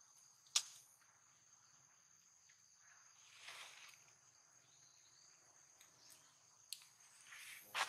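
Faint, steady high-pitched insect trilling, with a sharp click about half a second in, another click near the end, and two brief rustling swells.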